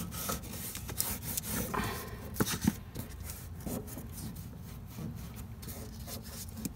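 Fingers rubbing a sheet of paper over rusty steel body panel to trace a pattern: an uneven scratchy rustling of paper on rough metal, with a few sharper ticks.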